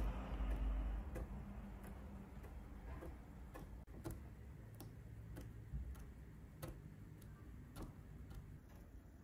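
Light, uneven ticks of a syringe needle tip tapping a canvas as dots of paint are placed one by one, roughly one to two a second. A low rumble dies away in the first second.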